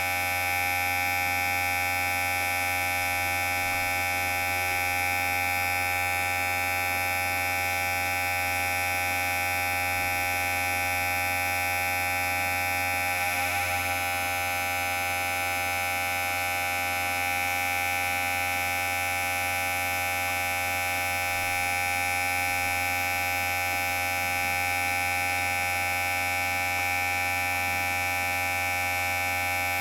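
Electric hair clipper running with a steady, even buzz, its tone wavering briefly about halfway through.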